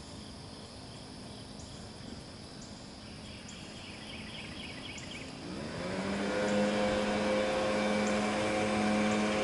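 Faint insect chirping, then about five and a half seconds in the blower's small engine revs up with a quickly rising pitch and settles into a steady, louder run, driving the canoe.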